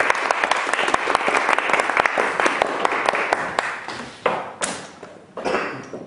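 Audience applauding in a hall, thinning and dying away about four seconds in, followed by a few separate louder knocks.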